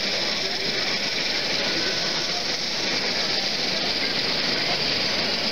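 Steady din of a busy exhibition hall: an even wash of noise with indistinct voices in the background.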